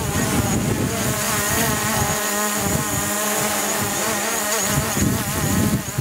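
DJI Mavic Pro quadcopter hovering in strong wind, its propellers buzzing with a pitch that wavers up and down as the motors correct for the gusts.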